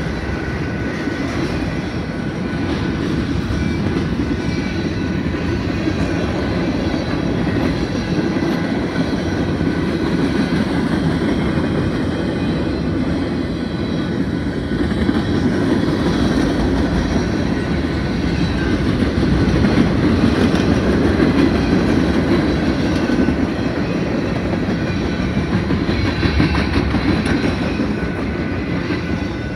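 Freight train's autorack cars rolling past: a steady rumble of steel wheels on the rails with clickety-clack from the rail joints.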